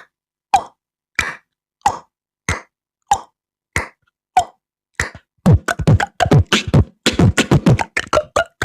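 Beatboxed mouth imitation of a table tennis rally. Single sharp pocks come evenly, about every 0.6 seconds, like a ball going back and forth. About five seconds in they turn into a fast, dense flurry of pops with deeper thumps.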